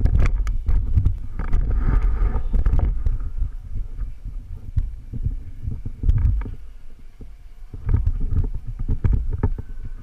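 Low rumbling and irregular thumps of wind and handling noise on a helmet-mounted camera's microphone, with a few sharp clicks. The rumble eases off briefly about two-thirds of the way in.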